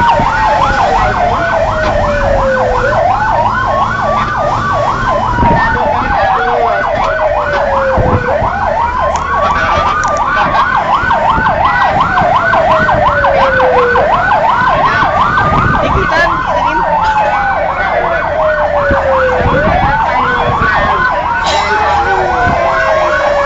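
Fire truck siren sounding continuously while responding. A slow wail sweeps up quickly and falls off over about five seconds, again and again, layered over a fast yelp warbling several times a second.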